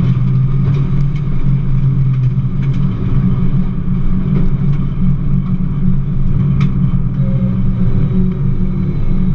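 Rally car engine running at low, fairly steady revs, heard from inside the stripped, roll-caged cabin while the car drives slowly. A few sharp clicks sound over the drone.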